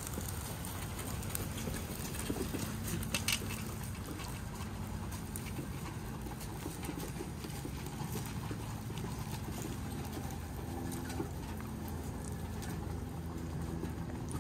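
Plastic wheels of a full four-wheeled Thetford Smart Tote 2 portable RV waste tank rolling over dry leaf litter and mulch, with footsteps, making a steady rumbling crunch. A few sharper clicks come about two to three seconds in.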